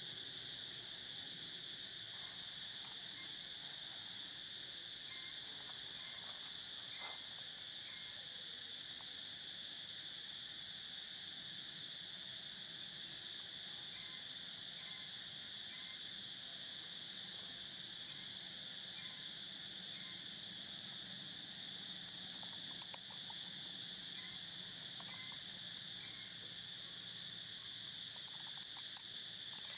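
Steady high-pitched drone of an insect chorus, with faint short chirps scattered through it.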